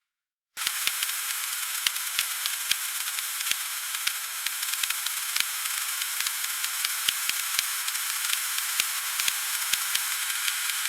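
Freezing rain: a dense, steady hiss thick with tiny sharp ticks of ice pellets striking, starting abruptly about half a second in.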